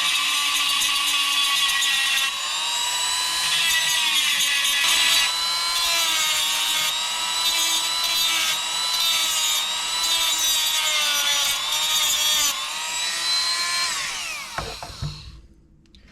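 High-speed rotary tool with a cutting wheel grinding a notch into a metal engine push rod near its end. The motor's whine dips in pitch each time the wheel bears on the metal, then near the end the tool is switched off and winds down.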